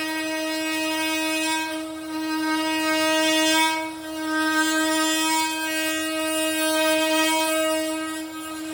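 Makita XMT04 18V cordless oscillating multi-tool running, its blade cutting a notch into a wooden stud with a steady high buzz. The pitch holds steady while the level dips briefly three times.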